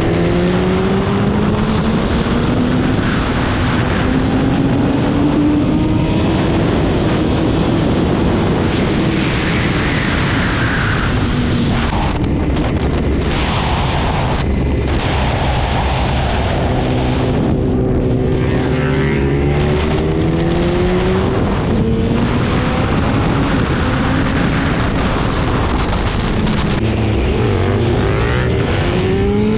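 BMW S1000RR inline-four sportbike engine running at road speed, its revs rising in several long pulls and easing off between them, under heavy wind rush on the onboard microphone.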